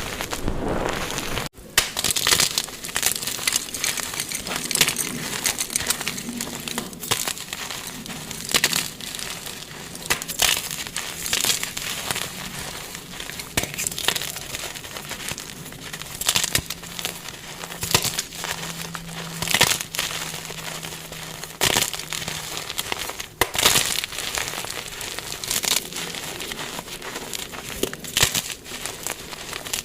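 Dyed blocks of gym chalk being crushed: a continuous dense crunching and crumbling, with sharper, louder cracks every few seconds.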